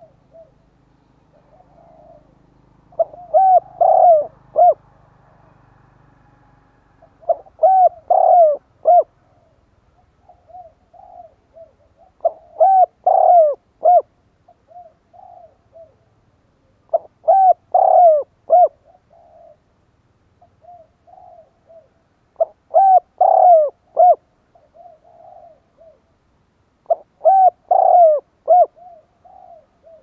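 Spotted dove cooing: six loud phrases of several coos each, about one every five seconds, with softer coos in between. It is a caged decoy bird giving its call to draw wild doves.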